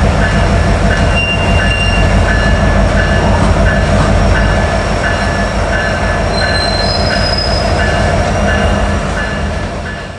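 Union Pacific SD70ACE diesel locomotive with its 16-cylinder EMD engine rumbling as it heads a passenger train at low speed, its bell ringing about twice a second. There are brief high wheel squeals about a second in and again around two-thirds of the way through, and the sound fades out near the end.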